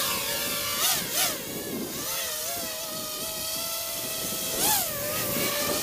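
Brushless motors and propellers of a 250-size FPV racing quadcopter running with a steady high whine. The pitch sweeps up and back down with quick throttle punches twice about a second in and once near the end.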